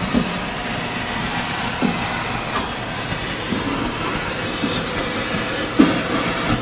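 Industrial sump vacuum running steadily, with a hiss of suction through the hose as it draws coolant and sludge out of a CNC machine's coolant tank; a couple of short knocks stand out.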